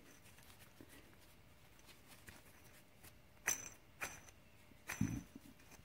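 Worn ATV wheel bearing from a 2012 Polaris Sportsman 500 being turned by hand: faint rough running, with a few sharp clicks and a knock in the second half. The bearing is bad.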